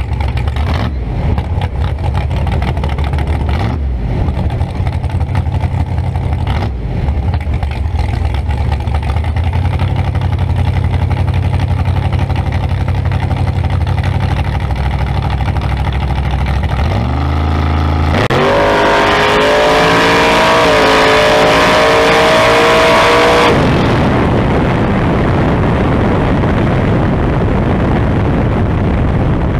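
Small-tire drag car's engine idling at the starting line, then brought up on the revs and launched. Its pitch climbs in steps through the gear changes for about five seconds, then drops away as the throttle is lifted, leaving a lower rush of engine and wind as the car slows down the strip.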